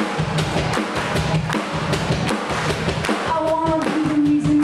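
Live rock band playing: a drum kit keeps a steady beat under guitars and bass. About three seconds in, a held note rises above the band.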